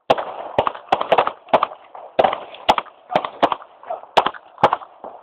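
Handgun fire: about a dozen pistol shots in quick, uneven succession, each sharp crack followed by a brief ringing echo.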